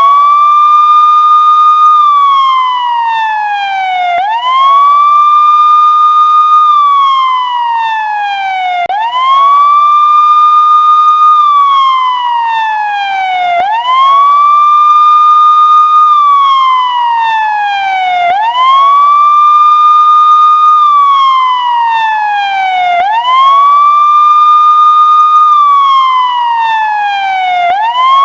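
Police siren in a steady wail: each cycle sweeps quickly up, holds at its high pitch for about two seconds, then slides slowly back down, repeating about every four and a half seconds.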